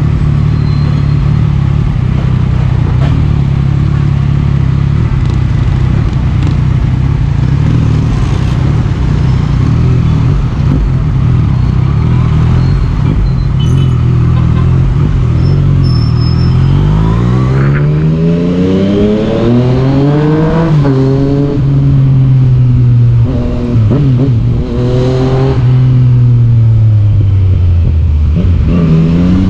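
Yamaha MT-09's three-cylinder engine running at low, steady revs in slow traffic for the first half. From about halfway it accelerates, its pitch climbing, then falling and climbing again several times with the throttle.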